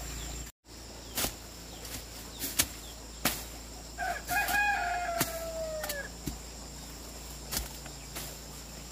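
A rooster crowing once, a long call about four seconds in that falls in pitch at the end. Several sharp clicks or taps are scattered around it, the loudest about two and a half seconds in, over a steady faint high tone.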